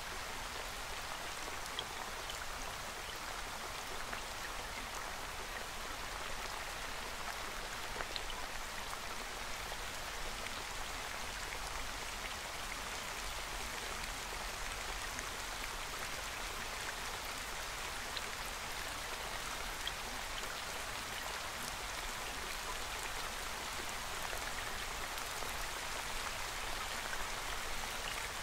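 Steady rain with scattered faint drop ticks, used as the masking track of a subliminal that hides affirmations beneath it.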